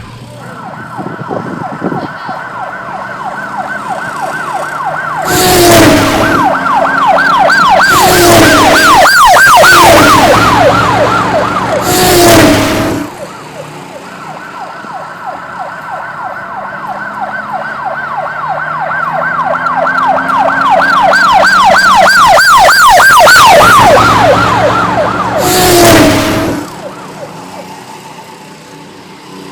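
Emergency-vehicle siren sound effect: a steady high tone that breaks into a fast warble, growing louder, twice over. Several short loud bursts, each with a small falling blip, cut across it.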